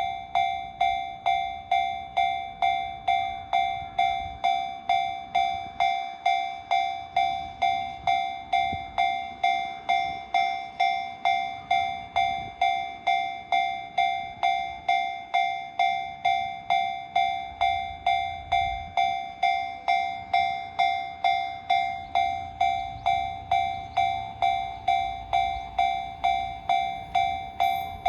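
Japanese railway level-crossing warning bell ringing steadily, one clanging tone about twice a second. In the last third a low rumble builds under it as a train approaches the crossing.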